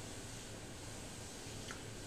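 Steady low hiss of background noise with a low hum, and one light click near the end.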